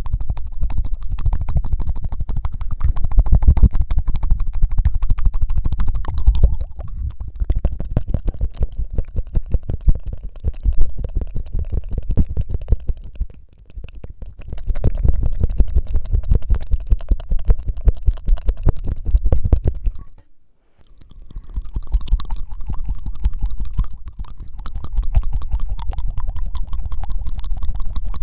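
Rapid tongue-fluttering mouth sounds right at the microphone: a loud, dense, fast rattle of tiny clicks with a low rumble, in long runs that break off briefly about halfway through and again about twenty seconds in.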